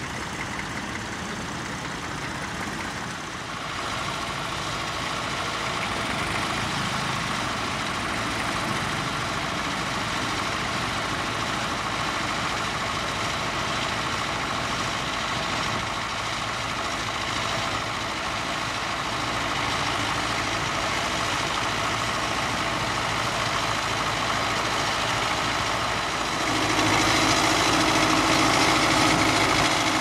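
Vintage tractor engines, among them a Massey Ferguson 35's, running steadily while pulling mounted ploughs through stubble. The sound gets louder a few seconds in and again near the end.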